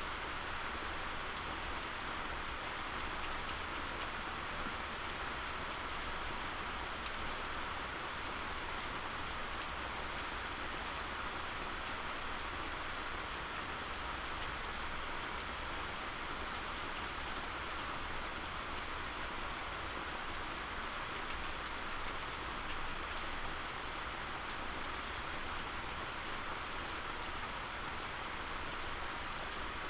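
Steady rain falling: an even, unbroken hiss with individual drops ticking through it.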